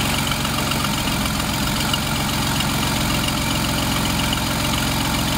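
Jeep Wrangler JK engine idling steadily while its freshly refilled cooling system is being burped of air through a funnel on the radiator neck.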